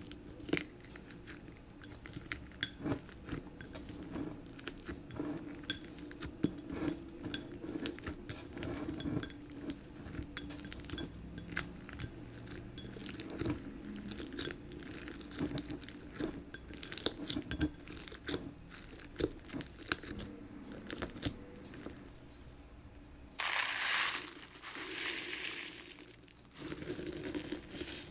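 Fingers squishing and poking sticky, sequin-filled slime in a glass bowl: many small irregular clicks and pops. Near the end, a hiss lasting about three seconds as clear plastic filler pellets are poured into the bowl.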